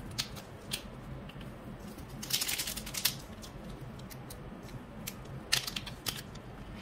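Crisp crinkling and ticking of a small plastic glitter packet as glitter is sprinkled onto slime: scattered ticks, with two short bursts of crackling, one a little before the middle and one about two-thirds through.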